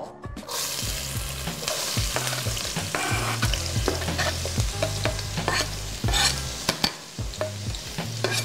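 Chopped onion sizzling and frying as it drops into hot olive oil in a pot, the start of a sauté; the sizzle starts about half a second in and runs steadily. Sharp clicks and scrapes of a knife pushing the onion off a cutting board over the pot's rim sound through it.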